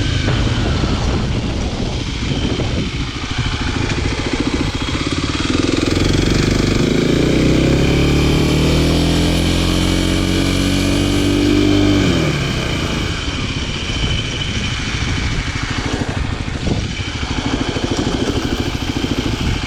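Kawasaki KLX300SM supermoto's single-cylinder four-stroke engine under way. About six seconds in, the engine note climbs steadily in pitch as the bike accelerates, then drops sharply when the throttle is closed, and it runs on at a lower, steadier note.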